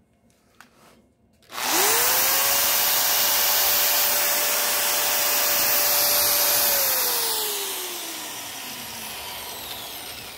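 Corded electric drill switched on about one and a half seconds in, spinning up quickly to full speed and running free with a steady whine for about five seconds, then released and winding down with falling pitch.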